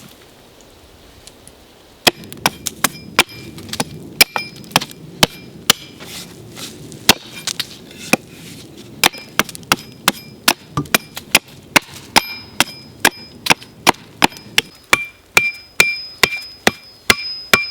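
Wooden wedges being driven into a pole-frame joint with repeated blows from the back of an axe: sharp knocks about two to three a second, starting about two seconds in, many with a faint ringing note.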